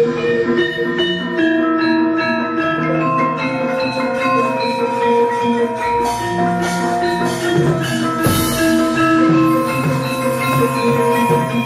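Javanese gamelan playing: ringing bronze metallophone notes over drum strokes, with a sharp knock about eight seconds in.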